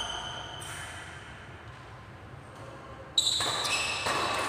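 Badminton rackets striking the shuttlecock during a rally: a lighter hit right at the start and a louder one about three seconds in, each followed by a high ringing ping that echoes in the hall.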